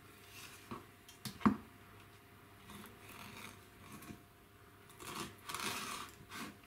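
Kitchen knife cutting through a fresh sardine on a wooden cutting board as the fish is opened flat along its backbone: quiet scraping strokes, a sharp knock about one and a half seconds in, and a longer scratchy cut near the end.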